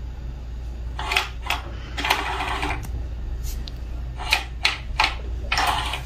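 Battery-powered Multilaser Crazy Donut cat toy running: its small geared motor turns a feather around inside the plastic dome, making a steady low hum with irregular clicks and short rattling bursts.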